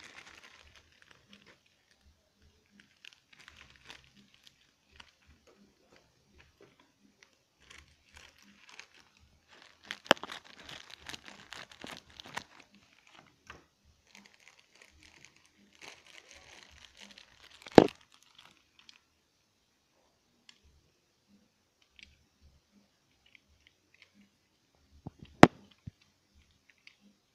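Clear plastic packaging crinkling and tearing in irregular bouts as it is handled and opened. Two sharp knocks stand out, one past the middle and one near the end.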